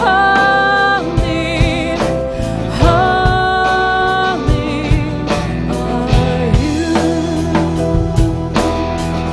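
Live worship music: a woman singing a slow melody with long held notes and vibrato, over a drum kit and bass.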